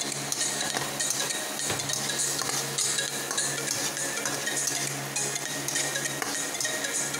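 Spatula stirring and scraping chopped onion and garlic around a metal pan, with repeated short scrapes over the sizzle of the sauté.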